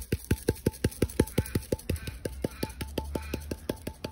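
Stainless steel spice shaker shaken rapidly over the meat, giving an even run of short knocks, about six a second, as dry rub is sprinkled on.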